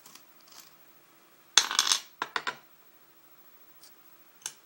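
Small metal lock parts clattering on a hard surface while a pin-tumbler lock cylinder is taken apart: a loud burst of quick metallic clicks about one and a half seconds in, a few lighter clicks just after, and a single click near the end.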